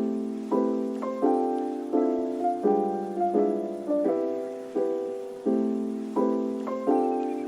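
Background music: a piano playing a gentle pattern of repeated chords, each struck and left to fade.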